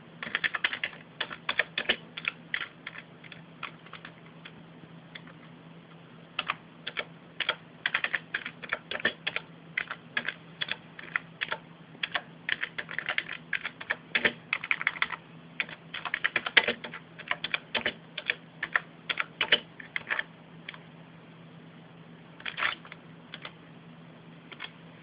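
Typing on a computer keyboard: keystrokes clicking in uneven runs for about twenty seconds, then stopping, with one short flurry of keys a couple of seconds later.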